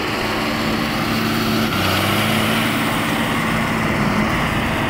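Diesel engine of a John Deere farm tractor running close by as it drives through snow. The engine picks up revs and gets a little louder about two seconds in.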